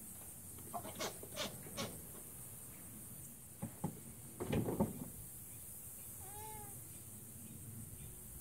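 A few scattered clicks, then a brief louder rustling noise about four and a half seconds in, followed by one short animal call that rises and falls in pitch.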